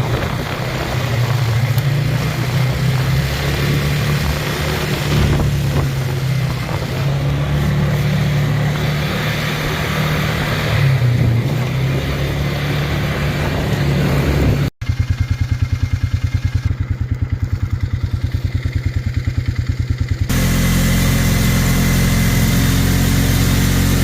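ATV engine running, from a quad its owner says was misfiring, its note wandering up and down for the first fifteen seconds. The sound cuts out abruptly, and the engine then idles with an even pulsing of about eight beats a second. It settles into a steadier hum for the last few seconds.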